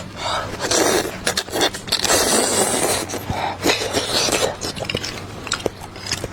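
Slurping and sucking hot bone marrow from a bone, in three long wet sucks with sharp smacking clicks between them.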